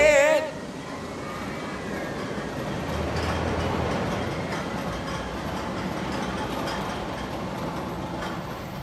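Music cuts off just at the start, leaving steady outdoor ambience: a continuous rushing rumble of noise with no clear tones or rhythm.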